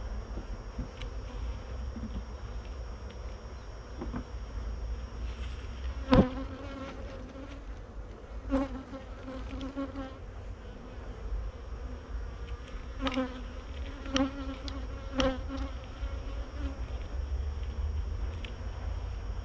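Honeybees buzzing around an open hive, with single bees buzzing loudly close by now and then, several times over the stretch. A sharp knock about six seconds in is the loudest sound.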